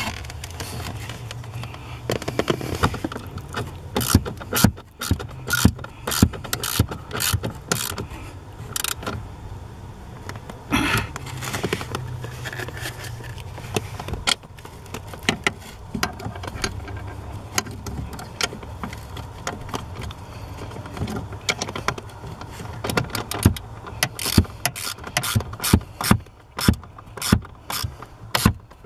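Hand ratchet clicking in quick runs of sharp clicks, with knocks of the tool against metal, as the gas pedal assembly's mounting fasteners are tightened. A steady low hum runs underneath.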